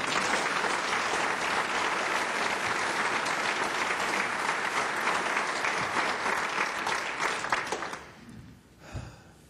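Audience applauding in a hall, dying away about eight seconds in.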